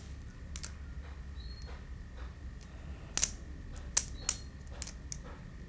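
Scattered light clicks and taps from handling soap and a wet clay slime mixture, irregular, with a few sharper clicks about three and four seconds in.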